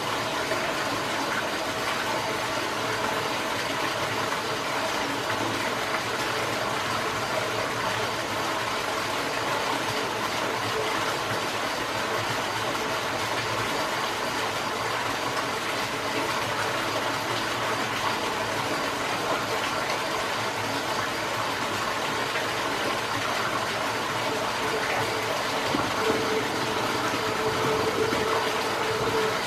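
Aquarium filter and pump running: a steady wash of water noise with a faint hum. Near the end a steady tone joins in.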